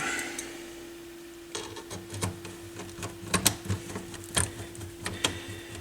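Light, irregular clicks and taps of parts and tools being handled while a stereo receiver is reassembled, starting about a second and a half in, over a steady faint hum.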